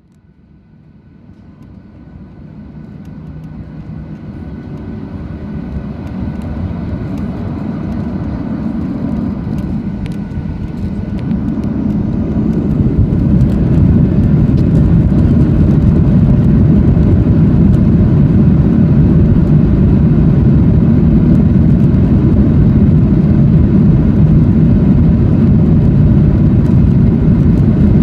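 Boeing 737-800 jet engines running during taxi, heard inside the passenger cabin as a steady low rumble. The sound fades in over the first few seconds, grows louder about twelve seconds in, then holds steady.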